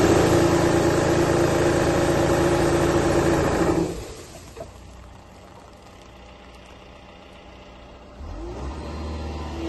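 Hydraulic olive-tree shaker head on a telehandler boom shaking a tree trunk: a loud steady hum over a rattling of branches, which stops about four seconds in. The telehandler's diesel engine then idles quietly and rises again near the end as the shaker starts up.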